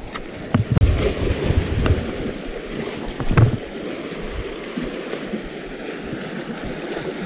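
Wind buffeting a body-worn camera's microphone, with a steady hiss and low rumbling gusts, and a few knocks from handling the rod and gear, the loudest about three and a half seconds in.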